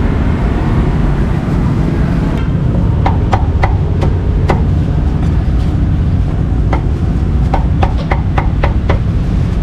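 Cleaver chopping cooked pork on a round wooden chopping block: a dozen or so sharp knocks from about three seconds in, some single, some in quick runs of two or three, over a steady low rumble of street background.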